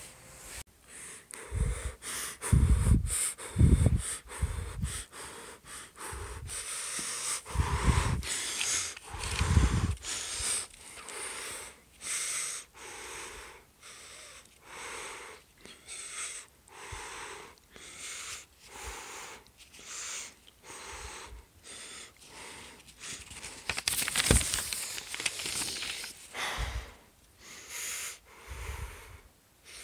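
A person breathing heavily close to the microphone: a run of short, noisy breaths about once a second, with a few thuds from the phone being handled in the first ten seconds.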